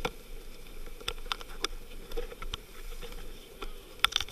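Sea water rushing and splashing along the hull of a sailing yacht heeled over in rough waves, with scattered short knocks and splashes; the loudest cluster of knocks comes near the end.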